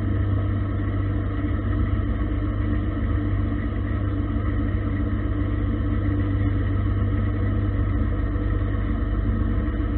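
Gildemeister CTX 400 S2 CNC lathe running steadily, its spindle turning a steel bar while a turret-mounted insert cuts it: an even, unchanging machine hum.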